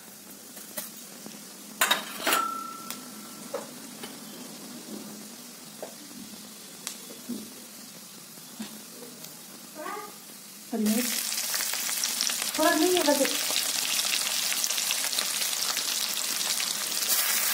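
Cumin seeds frying quietly in hot oil in a kadhai for a tempering, with scattered small clicks and pops. About eleven seconds in, chopped green chillies go into the oil and it breaks into a loud, steady sizzle.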